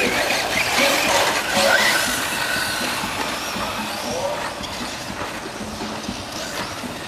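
Electric 4x4 short course RC trucks racing on dirt: the motors and drivetrains whine, rising and falling in pitch as the trucks accelerate and pass. The sound is loudest in the first two seconds and fades as they move away.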